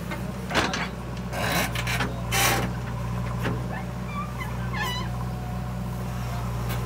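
Diesel engine of a JCB 3DX backhoe loader running steadily while it digs. Several short rushing scrapes in the first few seconds as the bucket cuts through dry soil, and a few short high squeaks about halfway through.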